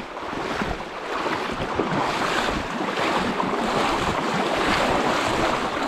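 Steady rushing and splashing of creek water close to the microphone, with wind buffeting the microphone in low thumps.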